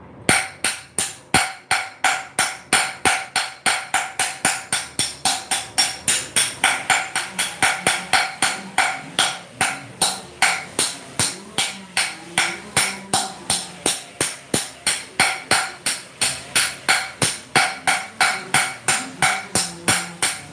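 Steady, rapid metal-on-metal tapping on a claw hammer's steel head, about two and a half strikes a second, each tap ringing briefly.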